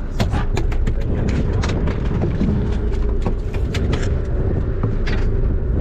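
Fishing boat's engine running with a steady low rumble, with irregular clicks and knocks over it.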